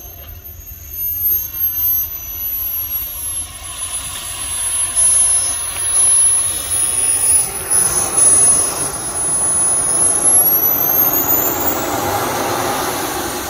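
Small turbine engine of an Aerofoam T-45 RC model jet whining at a high, steady pitch as the model rolls along the tarmac. Near the end the whine climbs in pitch as the turbine spools up.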